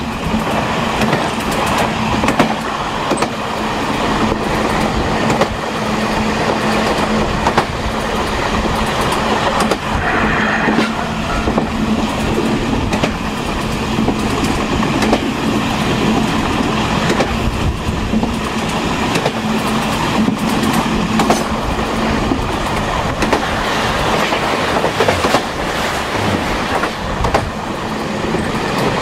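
Taiwan Railways Chu Kuang express passenger car running at speed, heard from the rear parlor car: steady rumble of wheels on rail with irregular clicks over rail joints and a steady low hum. A short high wheel squeal sounds once, about ten seconds in.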